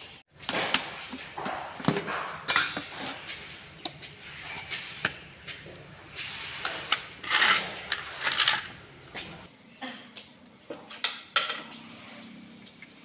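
Small plastic paint tub and its lid being handled, with the paint scooped out onto a plastic plate: irregular plastic clicks and knocks mixed with short scraping sounds.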